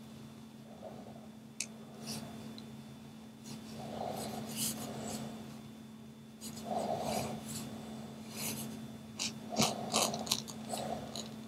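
Posca paint-marker tip scratching and rubbing across the painting in short, irregular strokes as an outline is drawn, over a steady low hum.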